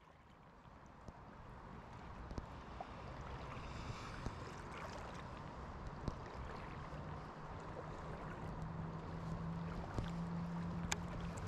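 Flowing river water, fading in from quiet over the first few seconds, with a few small splashes or clicks. A low steady hum joins underneath from about the middle and grows louder.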